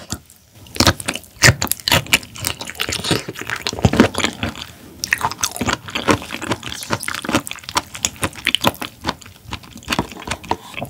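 Close-miked chewing of raw shrimp, a dense run of wet clicks and smacks that goes on throughout.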